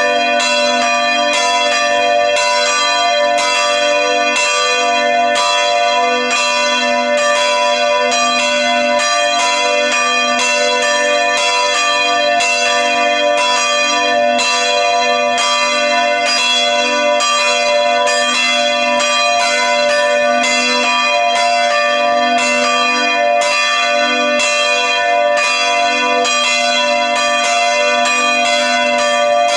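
Church bells ringing steadily in the tower, a continuous peal with strokes coming about twice a second over long ringing tones.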